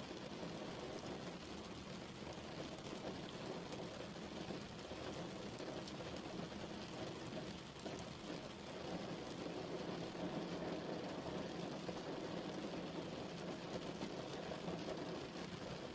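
Steady rain falling, an even rushing hiss with scattered drop hits.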